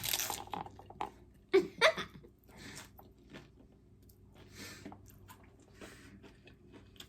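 Biting into a hard taco shell with a loud crunch, then crunchy chewing in irregular bites. The bite cracks the shell all the way across the bottom.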